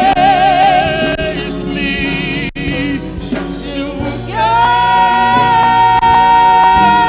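Live gospel singing with instrumental accompaniment. A lead voice wavers with vibrato at first, then holds one long high note from about four seconds in.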